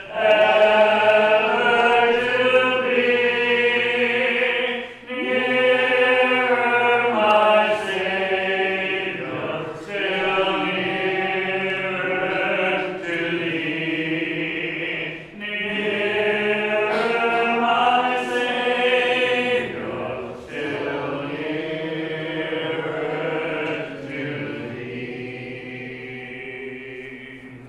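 A congregation singing the last lines of a hymn a cappella, in slow phrases of held notes, the final chord dying away near the end.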